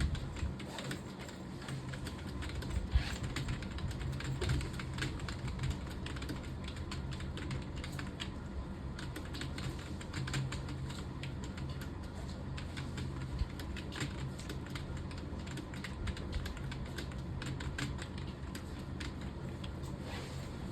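Typing on a computer keyboard: an unbroken run of quick key clicks.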